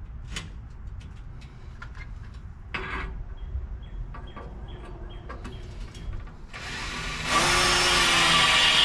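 Light clicks and knocks, then about seven seconds in an electric drill starts up loud and runs steadily as it bores a hole in the steel bracket bar, cutting off abruptly.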